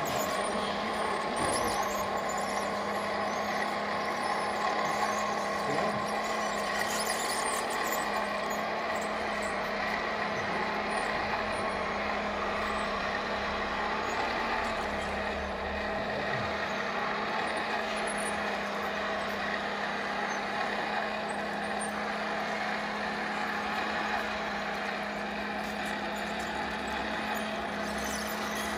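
Scale RC trucks running: a steady, truck-like engine drone over a constant low hum.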